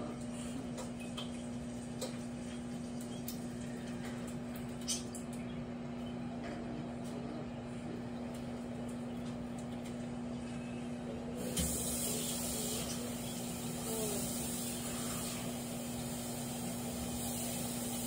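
Small countertop microwave oven running: a steady hum, with a higher hiss coming in about twelve seconds in.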